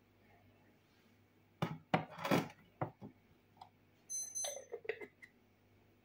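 Kitchen utensils being handled on a countertop: several sharp knocks and clatters about two seconds in, then a short, high ringing clink a little after four seconds.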